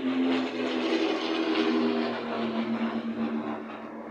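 Piper PA-34 Seneca's twin Continental TSIO-360 piston engines and propellers running as the aircraft flies overhead. The engine note drops in pitch about halfway through as it passes, and the sound then eases off slightly.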